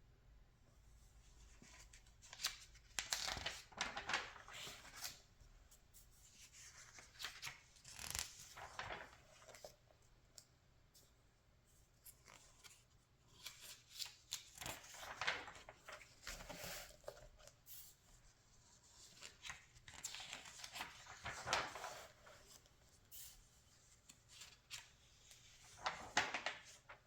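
Glossy magazine pages being turned by hand, a crisp paper rustle about five times, every few seconds.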